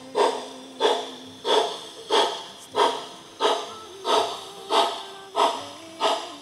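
HO scale model steam locomotive's sound chuffing in a steady rhythm, about one and a half exhaust beats a second, as it runs.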